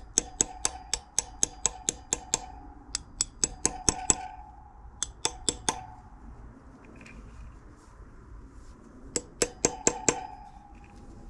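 Hammer tapping on metal to seat the new lower headset bearing of a Brompton folding bike, quick taps about four or five a second with a ringing note after them. The taps come in several runs, with a pause of a few seconds in the middle.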